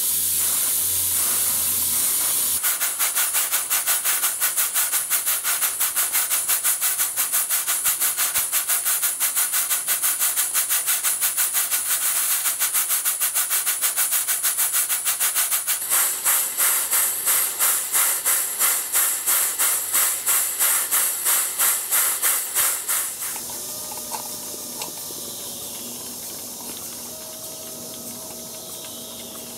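A Southworth duplex steam boiler feed pump runs in on less than 10 psi of steam. A steady hiss of steam turns, about two and a half seconds in, into a fast even run of exhaust beats, about four a second. These grow louder and a little slower later on, then stop about 23 seconds in, giving way to the quieter, steadier running of a small model beam engine.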